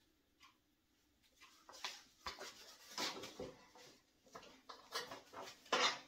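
Scattered small clicks, scrapes and knocks of hand-tool work on the metal parts of a Shopsmith Model 510 headstock, starting about a second and a half in, with a sharp click about two seconds in and the loudest scrape near the end.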